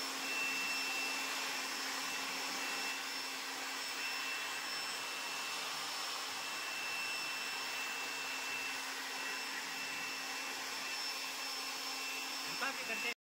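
Handheld electric air blower running steadily, a rushing hiss with a steady high whine, blowing the water out of a freshly washed split AC indoor unit to dry it. It cuts off suddenly at the end.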